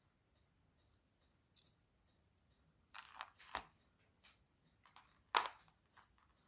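Sharp clicks, snaps and crackles of small hand tools at work on a soldered circuit board, in a cluster about three seconds in and with the loudest snap about five and a half seconds in. Faint, even ticking runs underneath at about two to three ticks a second.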